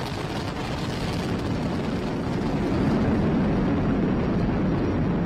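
Falcon 9 first stage's nine Merlin 1D engines at full thrust during ascent: a steady low rumble of rocket exhaust that grows a little louder about halfway through.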